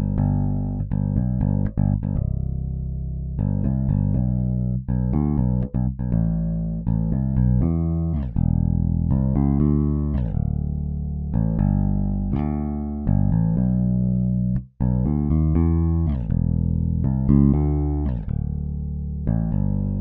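Toontrack EZbass virtual electric bass, on its Vintage bass with a clean DI sound, playing a Contemporary R&B MIDI groove at 121 BPM: a line of plucked bass notes with no other instruments. The line cuts out for an instant about three-quarters of the way through.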